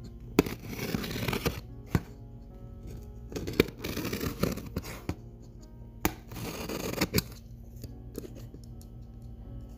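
Tape along the seam of a cardboard box being cut open with a blade, in three scraping strokes with sharp clicks between them, over soft background music.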